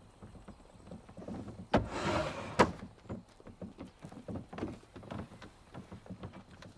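Small wooden sliding window of a palanquin being opened: a sharp knock, a short scrape, and a second knock about two seconds in, followed by faint irregular ticks.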